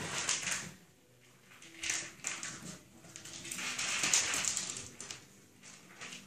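Puppies scrambling and playing with a shaken toy, a rustling, scuffling noise that comes in several bursts with quieter gaps between.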